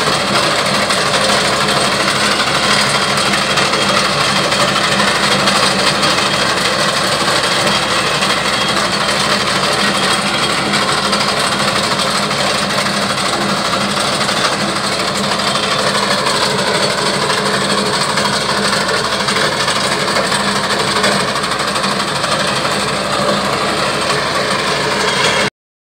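Tractor engine running steadily under load, with the reciprocating cutter bar of a tractor-mounted reaper working as it cuts a standing green fodder crop.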